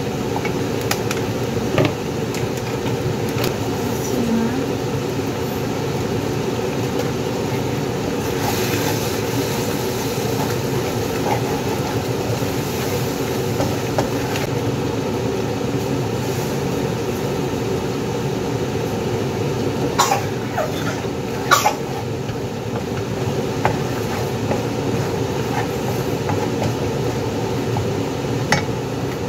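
A steady low hum under a wooden spatula stirring and scraping in a wok of thick sauce, with a few sharp knocks, two of them close together about two-thirds of the way in.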